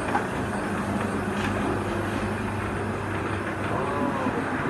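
Steady drone of commercial kitchen machinery running, with a constant low hum underneath.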